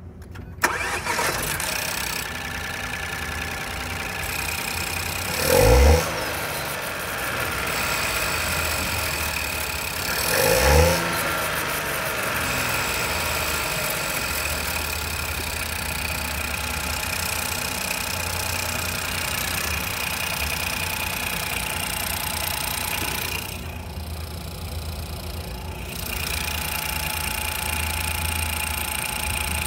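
2015 Ford Fiesta engine starting about half a second in, then idling steadily, with two brief revs about five and ten seconds in.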